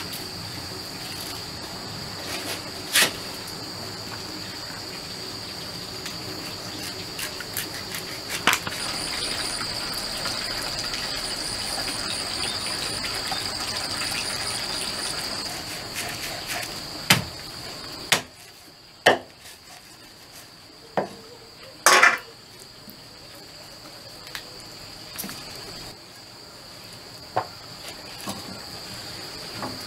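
A steady high chorus of insects chirring throughout, with a few sharp knocks of a blade chopping a chicken on a wooden block, mostly past the middle.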